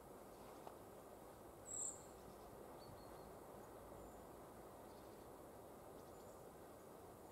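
Near silence: faint outdoor background noise, with one short high-pitched bird chirp about two seconds in and a few fainter chirps after it.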